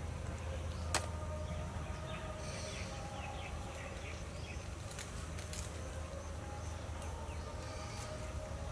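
Outdoor ambience: a steady low hum with faint high chirps, broken by a few sharp clicks, the loudest about a second in.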